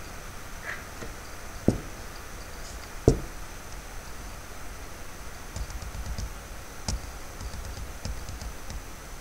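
Clicks and knocks at a computer desk: two sharp knocks about a second and a half apart, then a run of lighter clicks and taps.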